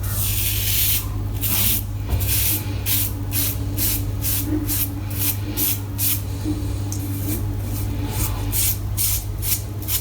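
Razor blade scraping lathered stubble on a scalp in quick short strokes, about two to three a second, after one longer stroke at the start. A steady low hum runs underneath.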